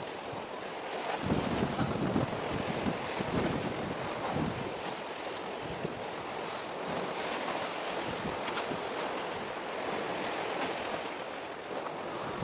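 Wind buffeting the microphone over a steady wash of sea water. The gusts are heaviest in the first few seconds.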